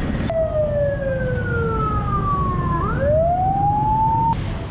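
An edited-in whistle-like sound effect: one pitched tone that glides slowly downward, then sweeps back up and stops abruptly, over a steady low street rumble.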